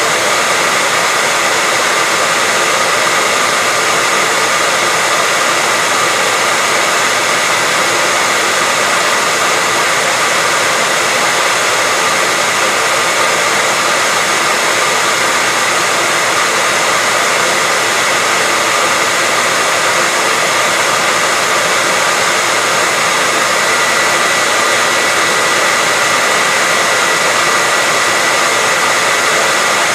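Hair dryer running steadily: a constant rush of air with a steady high whine from the motor and fan.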